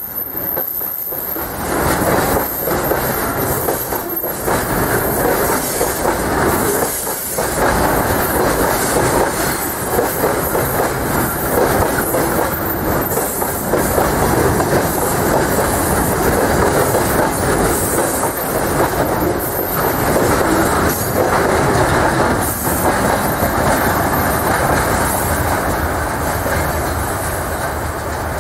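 Freight train of railway tank cars rolling past close by: a loud, steady rumble and rattle of wheels on rail, with irregular clicks as wheelsets cross rail joints. The noise eases slightly near the end as the last car goes by.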